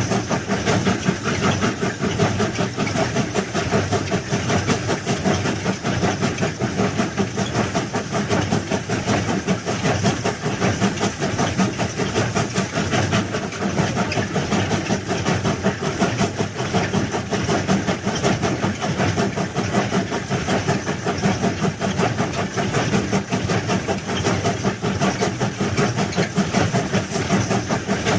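A train running, heard as a steady, dense noise with a rapid flutter in it.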